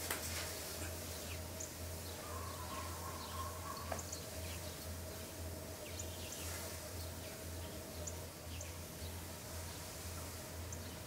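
Quiet room ambience: a steady low hum with faint, scattered bird chirps from outside.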